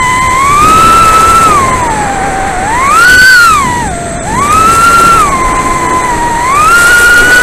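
Leader 120 mini FPV quadcopter's brushless motors and Gemfan 2540 props whining on a 3S battery, picked up by the onboard camera's microphone. The whine rises and falls with throttle, dipping low about two and a half and four seconds in and climbing high between them.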